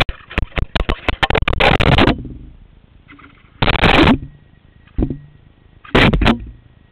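A small helmet camera knocked off a flipped RC truck tumbling and clattering across the ground, heard through its own microphone: a fast run of knocks and scrapes for about two seconds, then three separate thuds and scuffs about three and a half, five and six seconds in.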